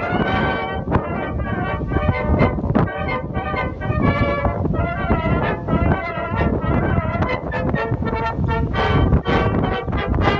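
Background music: a melody of changing pitched notes over a beat.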